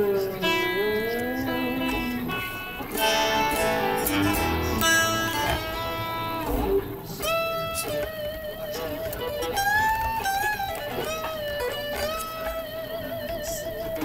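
Ibanez JS5 electric guitar playing single-note lead lines, with notes bent up and down in pitch, long held notes and wide vibrato.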